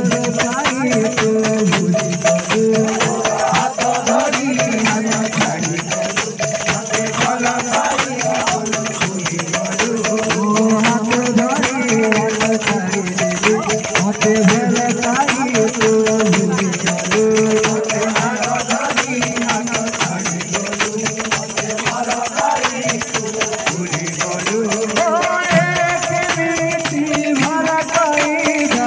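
Live kirtan music: a wavering melody over dense, fast jingling percussion. A higher melodic part comes in near the end.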